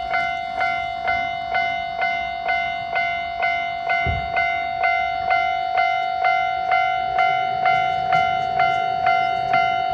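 Japanese level crossing's electronic warning bell ringing in a steady repeating 'kan-kan', about two strikes a second over a held tone. A brief low thump comes about four seconds in.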